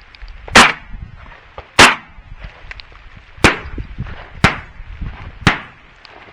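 Five shotgun shots fired at passing doves: two very loud shots about a second apart, then three slightly quieter ones about a second apart.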